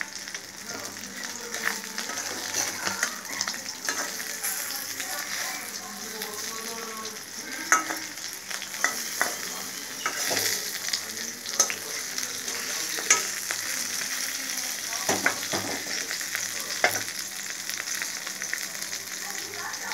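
Small whole fish shallow-frying in oil in a metal kadai, sizzling steadily. Now and then there is a sharp knock or scrape against the pan.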